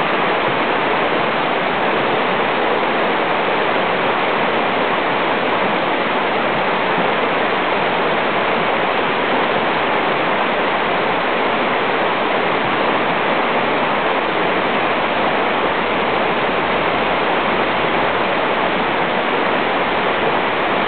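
River water rushing steadily over rapids and a mossy stone ledge, a loud, even roar of flowing water.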